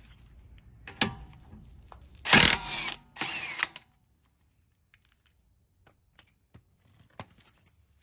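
Cordless 20V impact wrench (Earthquake XT) hammering on a wheel lug nut in two short bursts about two and a half seconds in, with a click before them and a few light clinks of socket and nut afterwards.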